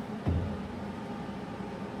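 Steady low hum of running shop machinery, with one low thump about a quarter second in.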